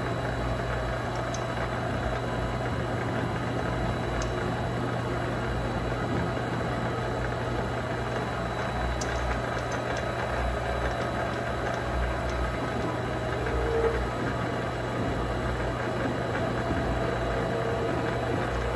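Vevor MX400 mini lathe running steadily, its motor and spindle giving an even hum, while a drill bit in the tailstock chuck bores into the spinning workpiece.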